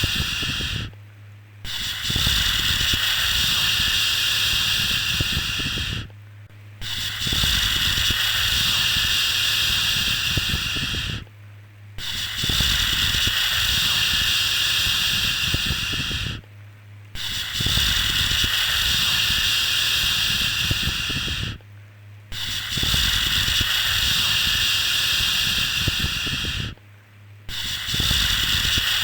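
Baby-soothing 'shhh' shushing, long hushing breaths repeated about every five seconds, each held for several seconds with a short pause between.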